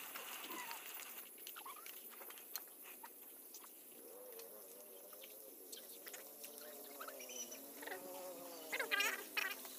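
A fly buzzing close by, wavering in pitch, from about four seconds in, over a faint steady wash of stream water; a few short sharp sounds near the end.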